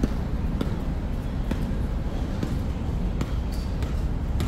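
Basketballs bouncing on a court, sharp irregular thuds about every half second to a second, over a steady low rumble. A short high squeak comes about three and a half seconds in.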